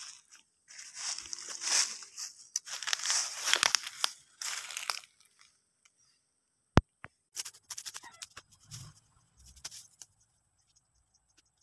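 Dry soil and leaf litter crunching and scraping in several bursts over the first five seconds, then one sharp click and a few softer scuffs. Insects chirr steadily in the background in the second half.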